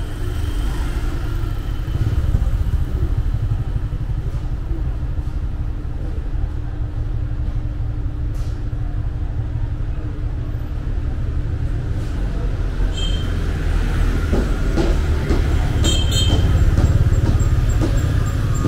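Steady low rumble of busy street traffic, with a few short high-pitched beeps in the second half.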